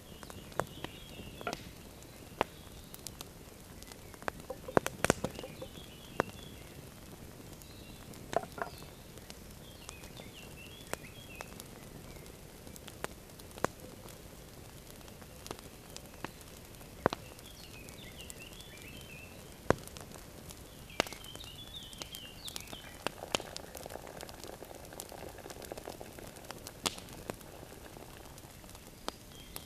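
Campfire crackling, with sharp pops scattered throughout. Small birds twitter now and then. Near the end comes the soft splashing of liquid being poured into a wooden kuksa cup.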